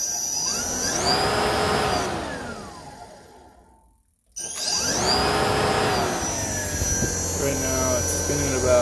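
Delco Remy 22SI alternator run as a brushless three-phase motor from an RC car's sensorless speed controller: a whine that rises as it spins up, holds, then falls away as it coasts down to a stop about four seconds in. It starts again abruptly and spins back up, the whine rising and then holding steady.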